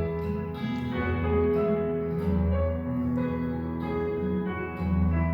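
Slow piano accompaniment with no voice, playing sustained chords that change about once a second.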